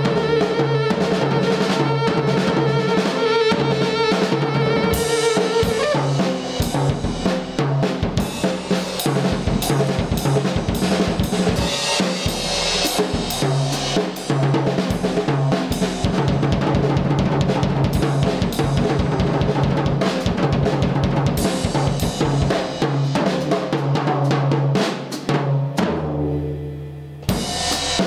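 Live drum kit played busily, with fast bass drum, snare and cymbal strokes. A saxophone holds one long note over the drums for about the first six seconds, then drops out and the drums carry on alone. Near the end the drumming briefly thins out before picking up again.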